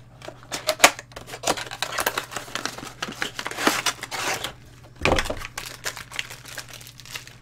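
Cardboard box and clear plastic packaging being handled and opened: irregular crinkling and rustling with scattered clicks and knocks, one sharp click about a second in and a heavier bump around five seconds in.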